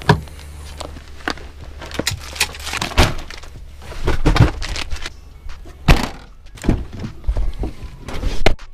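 Car rear hatch and side door being opened, with a string of thunks and clicks from the latch, the door and gear being handled in the car; the loudest knocks come about 6 s in and just before the end.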